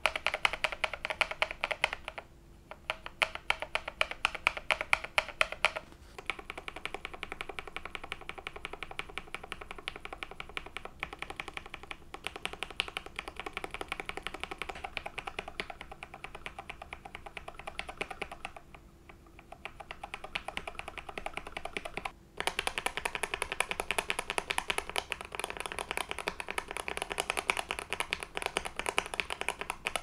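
Rapid continuous typing on a mechanical keyboard with light linear switches, KTT Red Wine and JWK Black, giving a dense run of key clacks with a few brief pauses. The switches have a deep, muted sound, with a slight pop and a little scratchiness.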